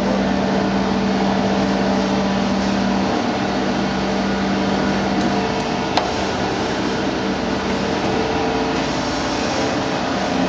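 Mattison 20x72 hydraulic reciprocating surface grinder running, a steady mechanical hum and hiss. A low hum in it stops about three seconds in, and there is a single short tick about six seconds in.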